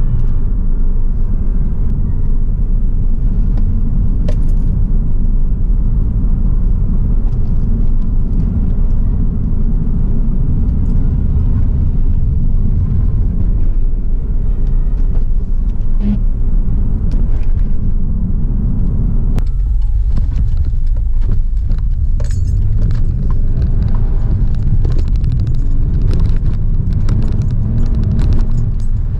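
Hyundai Tiburon heard from inside the cabin while driving: a steady low engine and road rumble. About two-thirds of the way in the drone dips briefly, and light clicks and rattles follow.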